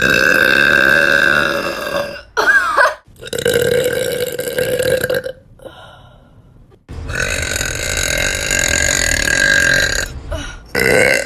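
A woman burping: a series of long, drawn-out burps, each lasting two to three seconds, with two short ones between them.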